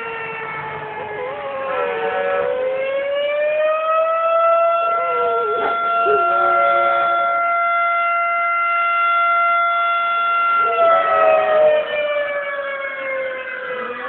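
Outdoor emergency warning siren wailing: its pitch rises over a few seconds, holds steady for about six seconds, then falls again. A Jack Russell terrier howls along in short wavering stretches.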